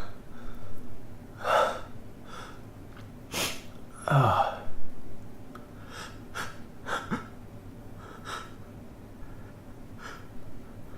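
A man's sharp, gasping in-breaths and hitching sneeze-like bursts as a sneeze builds, the loudest about four seconds in, with smaller hitches and sniffs after it.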